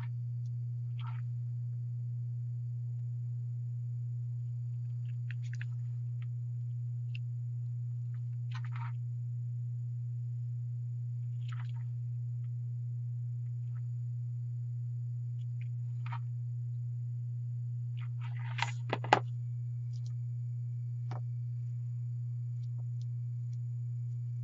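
Steady low hum at an even level throughout, with faint scattered ticks and rustles from hands working burlap and a hot glue gun, and a sharper pair of clicks about 19 seconds in.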